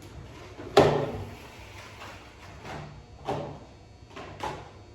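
Ceramic plate or bowl set down hard on a counter with a sharp knock and a short ring, followed by four lighter knocks of dishware being handled.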